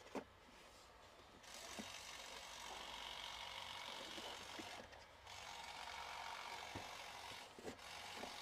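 Steady hiss of cold air from the car's air-conditioning blowing through the vent into the centre-armrest cooler box, starting about a second and a half in, dropping out briefly near the middle and then resuming. A few light clicks.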